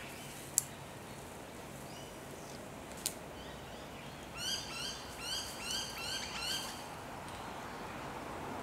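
Bird calls: a run of short, quick chirping notes, repeated in groups for a couple of seconds about halfway through, over a steady background hiss. Two sharp clicks come earlier.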